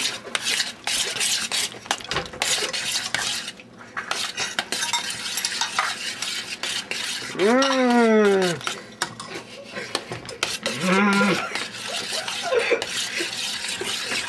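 Macaroni and cheese being stirred in a pot: a dense, irregular run of clicks and scrapes of a utensil against the pot. A voice makes a rising-then-falling hum about halfway through, and a shorter one a few seconds later.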